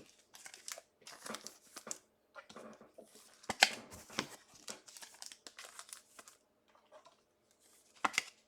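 Trading cards and their plastic packaging being handled, with irregular rustling and crinkling and sharp crackles about three and a half and four seconds in and again near the end.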